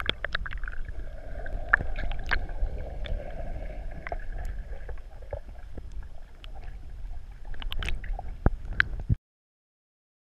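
Underwater noise picked up by a GoPro in its waterproof housing beneath river water: a muffled low rumble with scattered clicks and pops. It cuts off suddenly about nine seconds in.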